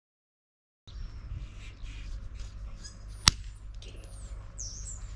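Silence for about the first second, then outdoor ambience: small birds chirping and calling over a low steady rumble. A single sharp click a little past three seconds in is the loudest sound.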